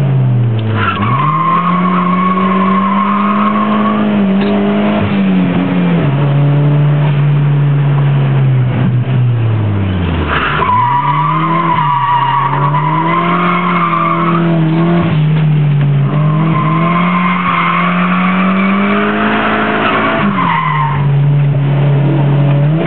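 Nissan S13 engine held high in the revs while drifting, heard from inside the cabin, with long stretches of tyre squeal. The squeal comes three times, each lasting several seconds. About ten seconds in, the revs drop sharply, then climb back up.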